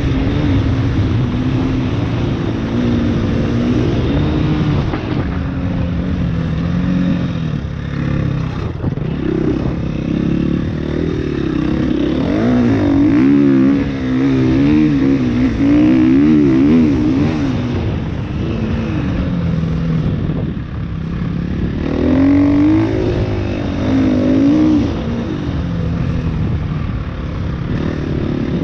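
KTM 350 EXC-F's single-cylinder four-stroke engine under way, its revs climbing and dropping again and again with the throttle.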